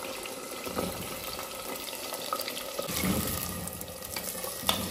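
Cubed potatoes sizzling as they fry in hot oil in a clay pot, stirred with a wooden spatula that clicks against the pot, with a sharp knock near the end.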